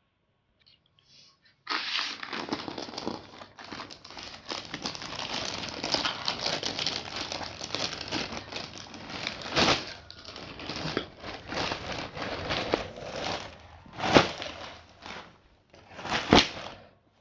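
Packaging being crinkled and torn open as a clothing parcel is unboxed. It starts about a second and a half in as continuous crinkling, with several sharper, louder rips, the strongest near the end.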